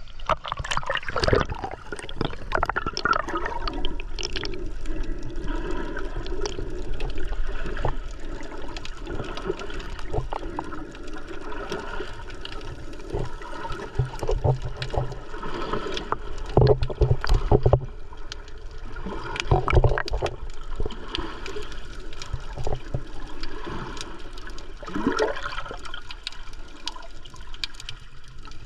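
Water gurgling and sloshing against the camera, with irregular knocks and a few heavier thumps.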